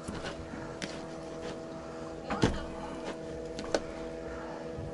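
A steady low hum of several even tones, with a few light knocks and clicks over it, the loudest knock about halfway through.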